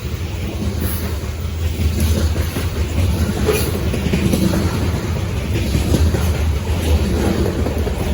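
A loaded CSX freight train passing close by: a steady low rumble with irregular clacking of wheels over the rail joints, growing louder over the first couple of seconds and then holding.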